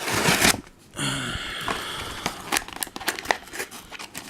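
Plastic blister pack being pried and torn away from its glued cardboard backing: crinkling and crackling plastic with a scratchy, squeaky rasp about a second in and a run of sharp clicks after it.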